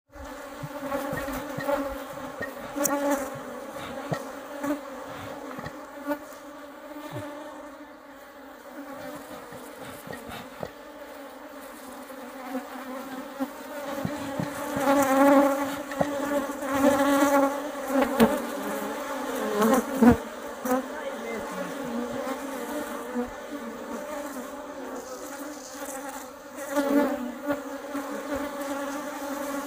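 Honeybees buzzing as they mob a death's-head hawkmoth at the hive entrance. A steady hum swells louder several times, with a few short clicks.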